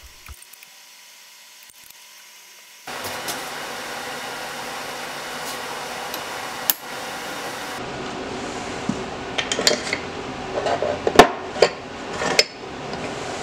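Steel quick-change tool-post holders clinking and clanking as they are handled in a tool drawer, a quick run of sharp metal clinks in the last few seconds, over a steady hum. A single sharp click comes about halfway through, and the first few seconds are quiet.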